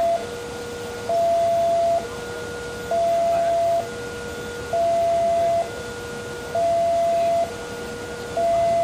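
Railway level crossing's electronic warning alarm, sounding to signal that a train is approaching. A high and a low tone alternate, each held just under a second, and the higher tone is the louder.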